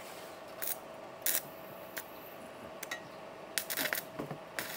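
WeWell Ecomix 200 inverter stick welder burning a 2.6 mm electrode: the arc crackles and sputters in short bursts, then hisses more steadily near the end. The rod runs with power to spare.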